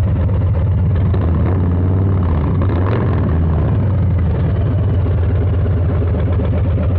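Harley-Davidson Low Rider S's Milwaukee-Eight 117 V-twin running through a Two Brothers two-into-one exhaust under way: a loud, steady, low exhaust note.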